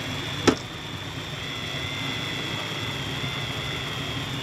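Electric deep-drop fishing reel in free spool, its spool spinning fast as line pays out under a sinking weight: a steady high whir. A sharp click about half a second in, over a low engine hum.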